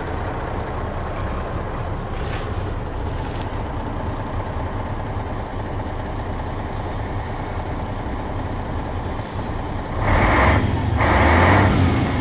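MAN 19.403 truck's 400 hp diesel engine idling steadily, heard from inside the cab, then revved twice near the end, about a second apart.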